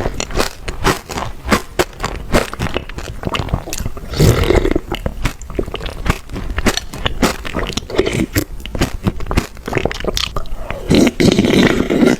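Close-up mouth sounds of a person biting and chewing chocolate: a dense run of crunching clicks, with louder stretches about four seconds in and near the end.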